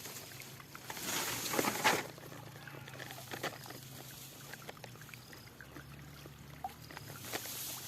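Water splashing and trickling in irregular clicks and sloshes, with a louder splashing burst about a second in, over a steady low hum and a few faint short chirps.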